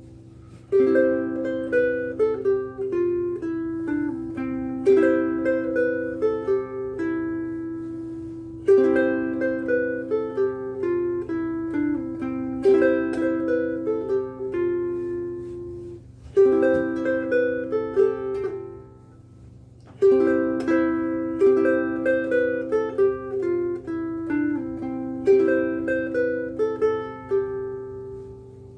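Ko'olau C100 koa concert ukulele fingerpicked solo: arpeggiated chords with a melody on top, in phrases that begin again about every four seconds, with short breaks between some of them.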